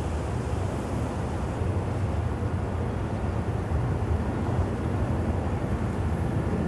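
Steady low outdoor rumble picked up by a camcorder microphone, with no distinct events.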